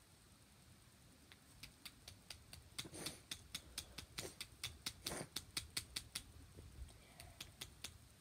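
A run of light, sharp clicks or taps, about three or four a second, starting about a second in and stopping near the end, with two short soft rustling noises among them.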